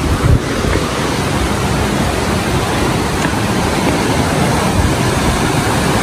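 Mountain stream rushing and splashing over boulders: a steady, loud wash of water noise. A brief low bump of phone handling comes about a third of a second in.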